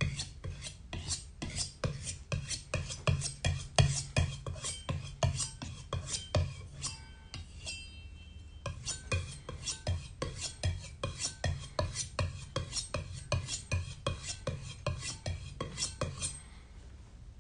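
Head knife stropped on a leather strop: quick back-and-forth scraping strokes, about three a second, polishing off the burr to finish the edge. The strokes pause briefly about halfway through and stop shortly before the end.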